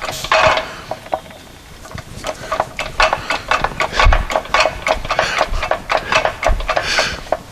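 A quick run of light metallic clinks and taps, many with the same short ringing note, as metal parts are handled and set up on a workbench to press a new bronze bush into an idler arm.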